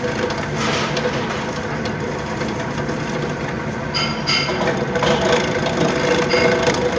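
Garlic slicing machine running: a steady motor hum with a held tone, with short rattles and clatters about four seconds in and again near the end.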